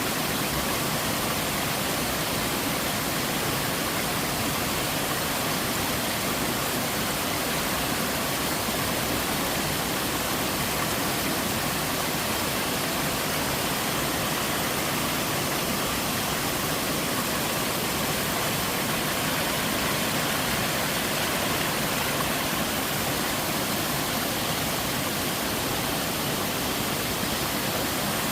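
Small waterfall in a mountain stream, water falling and splashing in a steady, even rush.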